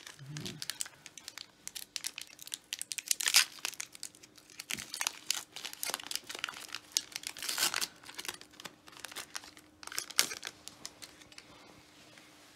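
Foil wrapper of a Pokémon trading card booster pack crinkling and tearing as it is opened by hand. The crackling comes in irregular clusters, loudest about a third of the way in and again past the middle.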